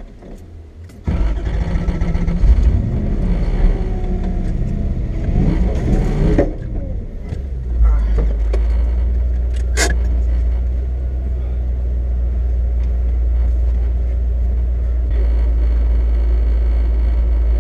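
Lexus SC400's V8 engine running as the car is driven: its pitch wavers up and down for the first few seconds, then it settles into a steady low drone. A single sharp click comes about ten seconds in.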